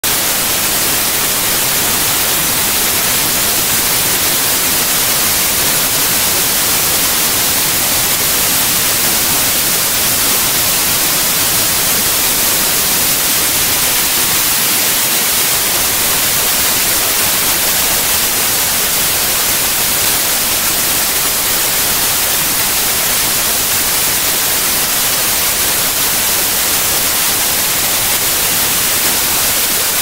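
White noise test signal: a loud, steady, even hiss that does not change.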